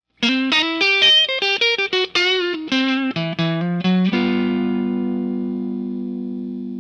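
Intro music on a guitar: a quick run of single plucked notes, then a chord struck about four seconds in that rings on and slowly fades.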